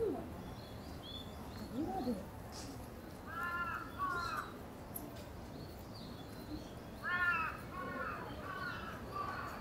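Crow cawing: two caws a few seconds in, then a run of several more in quick succession later on.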